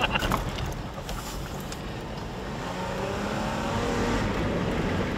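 Toyota pickup truck's engine accelerating on a dirt road, heard from inside the cab, its pitch rising through the middle of the stretch over a steady low road rumble.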